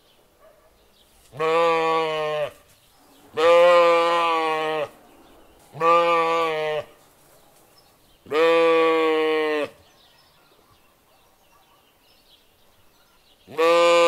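A sheep bleating: four long calls, each lasting a second or more, then a pause, and a fifth call starting near the end.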